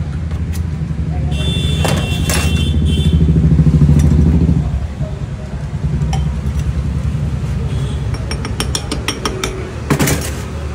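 A motor vehicle's engine running close by, swelling to its loudest about four seconds in and easing off soon after. Near the end comes a quick run of clinks, a steel tumbler against a drinking glass.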